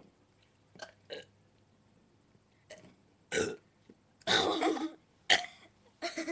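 Person burping: a loud burp about three seconds in, then a longer, louder one lasting about half a second, then two short sharp burps near the end.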